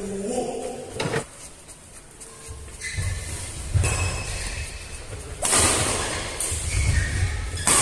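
Badminton rackets hitting a plastic shuttlecock in a doubles rally, about five sharp hits spaced a second or more apart, echoing in a large hall.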